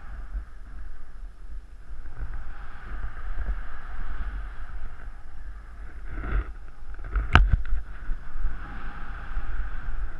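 Airflow buffeting the microphone in paraglider flight: a steady, fluctuating low rumble with a hiss above it. A single sharp click about seven seconds in.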